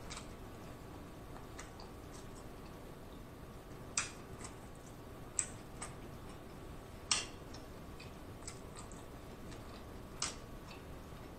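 Close-miked chewing of seafood: a handful of short, scattered wet mouth clicks and smacks, the loudest about 4, 5.5, 7 and 10 seconds in, over a faint steady hiss.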